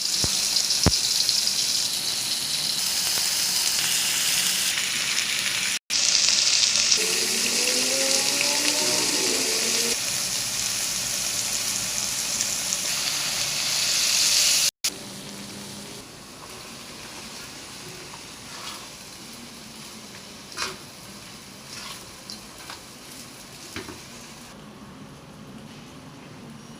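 Flat rice noodles and egg sizzling loudly in hot oil in a pan as they are stir-fried. About halfway through the sizzle drops to a much quieter hiss, with a few sharp clicks and knocks.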